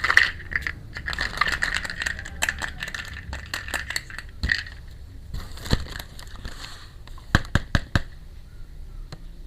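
Small plastic toy kitchen pieces and their packaging being handled: rustling and scraping with a scatter of light clicks, then four sharp clicks in quick succession near the end.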